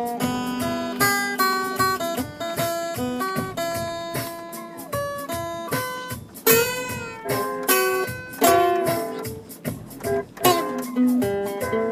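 Guitar music: plucked notes and chords played one after another in a melody.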